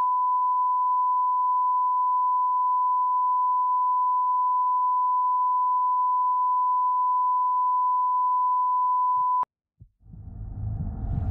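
A 1 kHz line-up test tone, a single steady sine-wave beep played with television colour bars, held for about nine seconds and then cut off abruptly. After a brief gap, a low rumbling sound swells in near the end.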